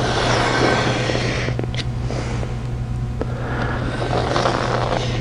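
Knife blade drawn along a straight edge, slicing through a poster and foam board in two long scraping strokes: one through the first second and a half, another from about three seconds in. A steady low hum runs underneath.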